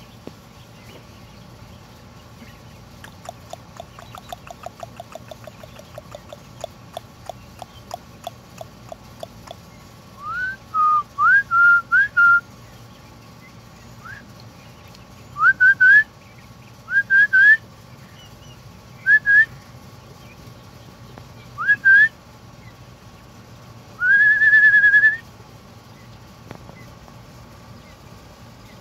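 Heritage Bronze turkey poults peeping: a few seconds in, a run of quick short chirps, then loud rising whistled peeps in short groups, ending with one longer held whistle.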